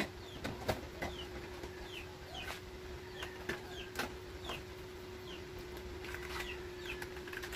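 A bird's short falling peeps, repeated about twice a second, over a steady low hum, with a few sharp clicks and knocks of tin cans being handled and set down.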